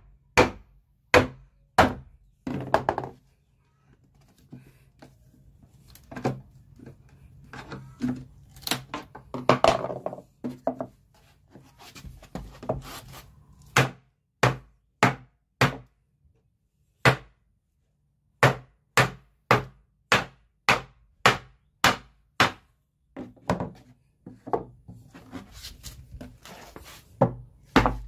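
Hammer blows on a scrap-wood impact block and flathead screwdriver, knocking nailed wooden pieces loose from an oak chest panel. Dozens of sharp knocks come in irregular runs with short pauses.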